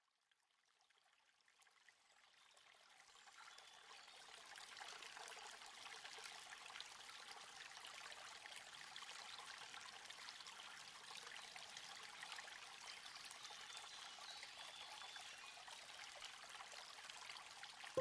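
Faint, steady sound of running water, like a small stream or waterfall, fading in over the first few seconds.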